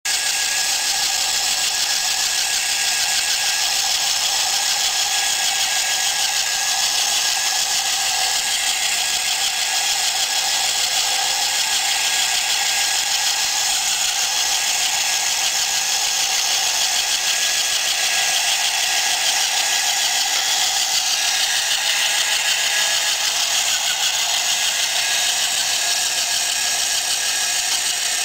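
Small battery-powered electric motor and plastic gear train of a homemade tracked model tractor running steadily, a constant high-pitched mechanical whir with gear and track rattle.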